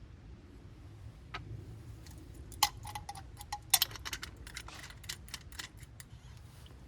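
A quick run of sharp small clicks and light clinks, some ringing briefly like glass, from a bottle and glass being handled as a bourbon is poured. The two loudest clinks come about two and a half and four seconds in.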